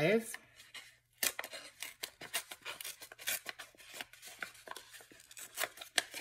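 Paper and plastic craft packaging being handled and opened by hand, a quick, irregular crinkling and rustling of many small clicks.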